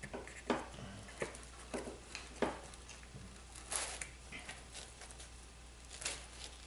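Scattered soft taps, scrapes and rustles as a slice of pepperoni pizza is pulled free in its cardboard box, with a longer scrape a little before the middle.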